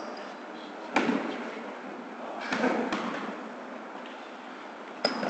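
Several thuds of a basketball bouncing on a hardwood gym floor: one about a second in, a few more around the middle and one just before the end. Short sneaker squeaks come near the end, over a low murmur of players' voices.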